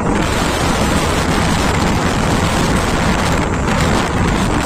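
Strong gusty wind buffeting the phone's microphone with a loud, steady rumble, and wind rushing through tossing trees and banana leaves ahead of a rainstorm.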